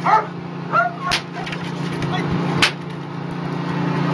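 A German Shepherd barks twice, followed by two sharp cracks, over a steady low engine hum.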